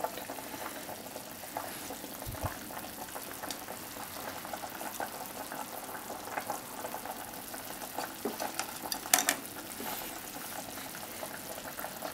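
Broth simmering in an aluminium pot, bubbling steadily, as chopsticks move the fried tofu and potatoes about. A sharp click about nine seconds in is the loudest sound.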